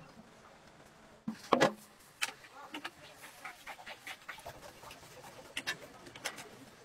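Wire balloon whisk stirring thick frying batter in a large aluminium stock pot, its wires ticking irregularly against the pot's sides. A single loud knock about one and a half seconds in.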